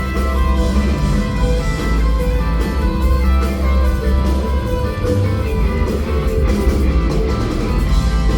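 Rock band playing live: a guitar-led instrumental passage over heavy bass, loud and unbroken.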